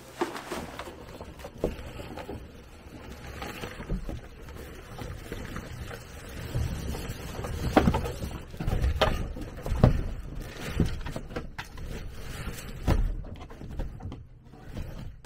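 Nylon canoe spray deck being spread and pulled over the canoe, rustling, with several dull thumps against the hull, loudest about eight and ten seconds in, heard from inside the hollow hull.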